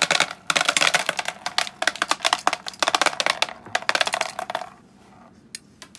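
Filled two-piece capsules falling out of a capsule-filling machine's plate and clattering into a plastic tub: a dense rapid rattle of small clicks that stops after about four and a half seconds, with a few single clicks near the end.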